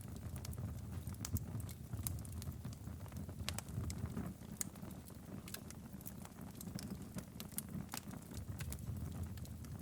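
Wood fire crackling in a fireplace: scattered sharp pops and snaps at irregular intervals over a low, steady rumble.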